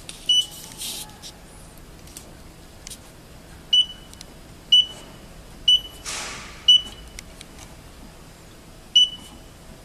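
Keypad on a programmable guillotine paper cutter's control panel beeping as its buttons are pressed: six short, identical high beeps at uneven intervals of about a second or more.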